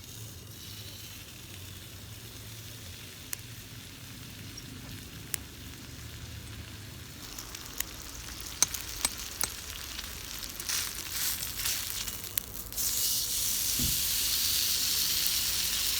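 Food sizzling in a hot pan or tin, faint at first, with scattered sharp pops and crackles from about halfway through. About three-quarters of the way in, the sizzle turns suddenly louder and steady.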